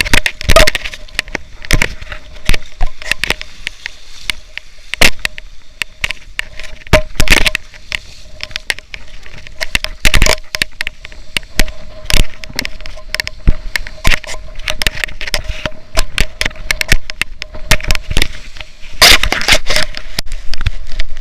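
Irregular loud crackles and knocks from wind buffeting and water splashing on a body-worn action camera's microphone, over a low rumble and a thin steady tone.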